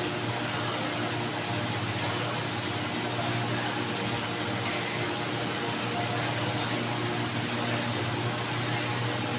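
Small electric desk fan running: a steady hiss with a low hum.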